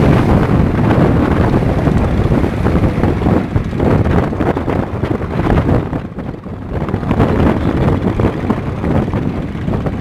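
Strong wind buffeting the phone's microphone, a heavy low rumbling noise that eases briefly about six seconds in.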